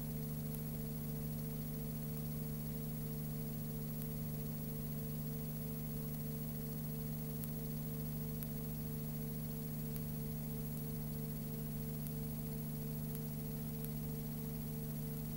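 Steady electrical hum with hiss and a few faint ticks, unchanging across picture cuts: background noise of a silent Super 8 film transfer, with no sound from the scene itself.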